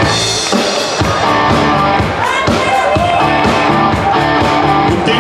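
Live band music: electric guitar over a steady beat.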